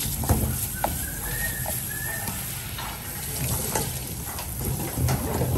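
Water from a sink spray head running over a whole king crab as hands rinse and scrub its shell, with a few knocks as the crab is handled and lifted on the cutting board.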